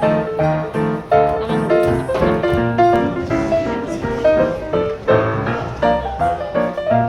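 Background piano music, a steady flow of notes in a quick, even rhythm.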